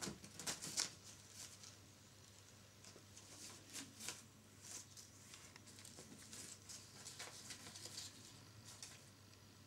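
Faint, scattered rustling and scratchy ticks from young Turkish Angora kittens scrabbling and pawing at a ribbon wand toy and paper on a bedspread, with a louder flurry of scratching under a second in.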